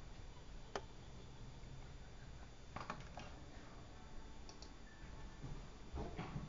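A few faint, scattered clicks and taps from a computer mouse and keyboard, over a low steady background noise: one about a second in, a short cluster around three seconds in, and another near the end.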